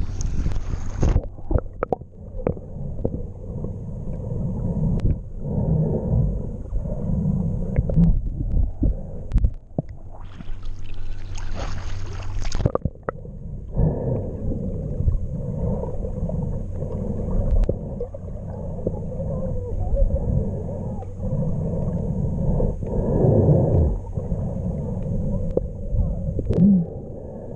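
Muffled underwater rumbling and gurgling of moving water, heard through a camera held under the surface while snorkeling. Twice, at the start and around ten to twelve seconds in, brighter splashing hiss cuts in for a second or two, the sound of the camera at the surface.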